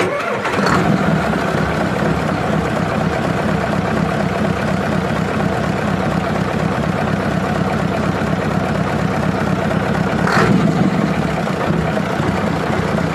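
Mitsubishi 8DC11 V8 diesel engine idling steadily, with one short sharp noise about ten seconds in.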